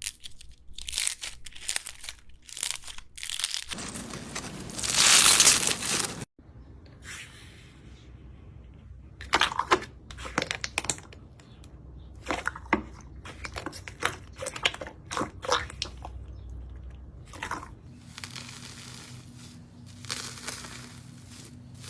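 Slime being squeezed and pressed by hand: a run of small crackling pops and crunches, with a louder, denser crunching stretch about four seconds in that cuts off abruptly.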